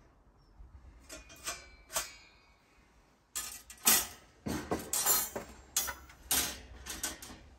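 A metal barbecue ash pan and grill clinking and clanking as they are handled, fitted under the cooker and set down on a wooden table. There are a few light clinks about a second in, then a run of sharper metal knocks from about three seconds in, the loudest just before four seconds.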